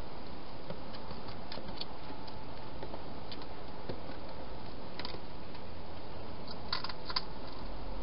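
Faint clicks and taps of a hedgehog moving into a clear plastic feeding box, over a steady hiss, with a short run of sharper clicks about seven seconds in.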